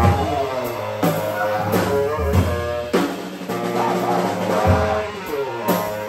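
Saxophone and drum kit playing together live: the saxophone plays sliding, bending melodic phrases while the drums answer with tom and bass drum strikes and cymbal hits, irregularly spaced about once a second.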